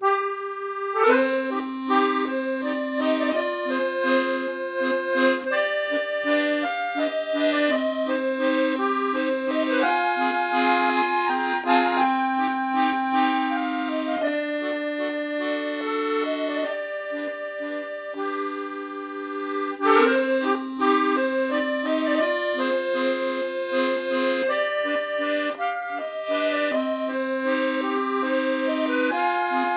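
Instrumental music: a melody of sustained notes over a steady held bass note, with the phrase starting over about two-thirds of the way through.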